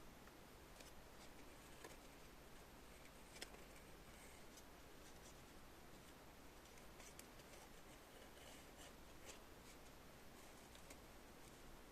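Near silence: room tone with faint scattered clicks and light scratchy rustles, one click a little sharper about three and a half seconds in.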